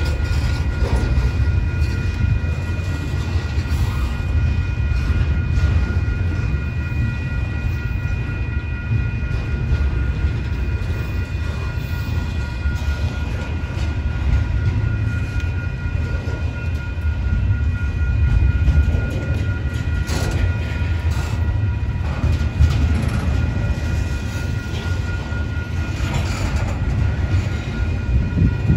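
Union Pacific double-stack intermodal freight train passing close by: a steady low rumble of container-laden well cars rolling over the rails, with a steady high-pitched tone over it.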